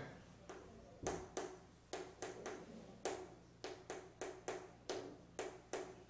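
Chalk writing on a chalkboard: a series of short, uneven taps and strokes as the chalk marks out handwritten Korean characters. It starts about a second in.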